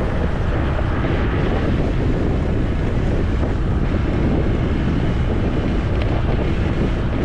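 Steady wind buffeting the microphone: a loud, even low rumble with hiss above it.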